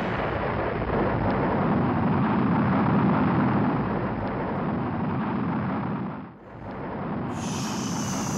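Rocket engine sound effect: a steady, noisy rumble as the smoking rocket goes down. It drops out briefly about six seconds in and comes back with more hiss.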